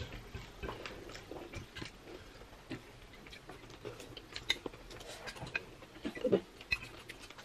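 Forks and spoons clinking and scraping lightly on plates, with chewing, as people eat a meal. Scattered short clicks run throughout.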